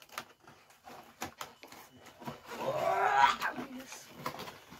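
Cardboard and plastic toy packaging being handled and tape peeled off the box: scattered small clicks and crinkles, with one longer, louder rising sound about two and a half seconds in.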